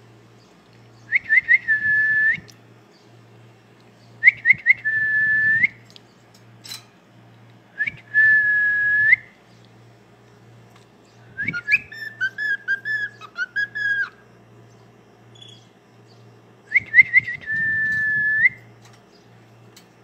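A male grey cockatiel whistling a learned tune. Four times it gives a few quick rising notes that end in one long held note, and midway through it gives a longer, quicker warbling phrase of many short notes.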